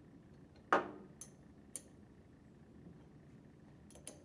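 Metal wrench clicking against the pump's head cap screws as they are tightened: one louder clack under a second in, a couple of light clicks after it, and a quick double click near the end.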